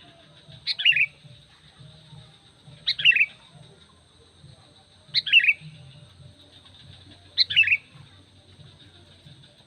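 Sooty-headed bulbul (kutilang) calling: four short, loud calls about two seconds apart, each a quick falling phrase of a few notes. A faint steady high tone runs underneath.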